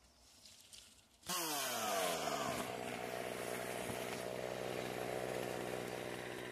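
Chainsaw engine starting abruptly about a second in, its pitch falling as the first rev dies away, then running at a steady idle.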